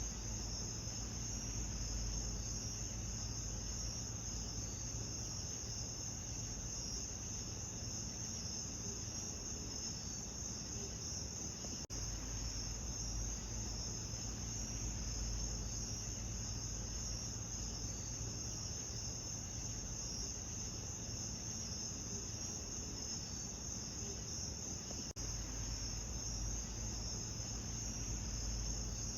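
Steady night chorus of crickets trilling, with a faint low hum underneath. It dips briefly twice, about twelve seconds in and again near the end.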